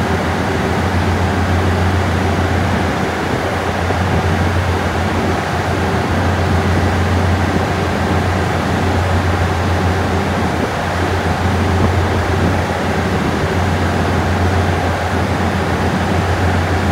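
Steady low drone of an idling diesel train engine, a constant deep hum under an even mechanical noise.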